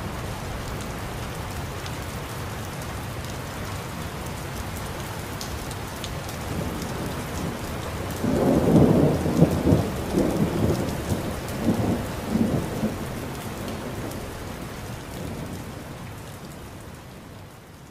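Steady rain during a thunderstorm, then about eight seconds in a loud crack of thunder from a close lightning strike that rumbles on for several seconds and dies away. The rain fades out near the end.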